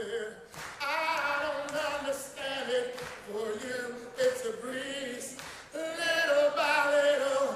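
A man singing solo into a microphone, holding long notes with strong vibrato and short breaks between phrases, with no beat behind him.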